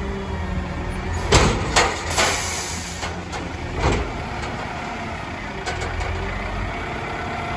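Mack MRU Heil Odyssey front-loader garbage truck running steadily, with four loud metal bangs between about one and four seconds in as a container is handled by the loader.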